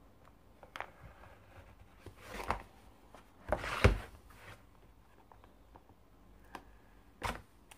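Small cardboard box being handled and turned over by hand: a few short scrapes and rustles of cardboard, the loudest about halfway through, with light taps, one of them sharp near the end.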